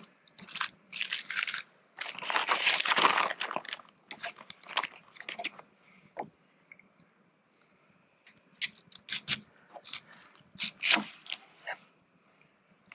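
Onion being peeled and sliced with a kitchen knife on a plastic cutting board: irregular crisp crunches and knife taps, with a longer dense rustling stretch about two seconds in. A steady high-pitched hum runs behind.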